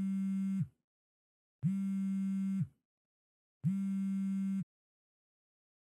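Mobile phone ringback tone of an outgoing call ringing: three low, buzzy tones about a second each, two seconds apart.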